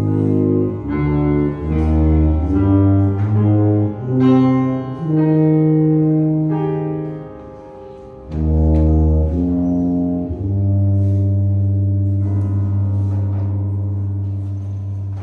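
Tuba and piano playing the closing bars of a romance: a phrase of low, sustained tuba notes over piano chords, ending on one long held low tuba note of about five seconds, with a last piano chord sounding beneath it, fading out at the end.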